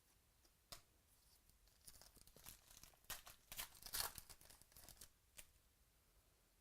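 Wrapper of a baseball card pack being torn open and crinkled: a single click early, then a run of faint crackling and tearing from about two seconds in to past five, loudest around four seconds.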